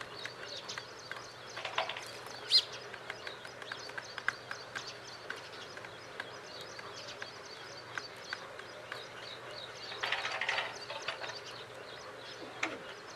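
Faint outdoor ambience with small birds chirping throughout and scattered light clicks. There is one sharper click about two and a half seconds in and a busier run of chirps about ten seconds in.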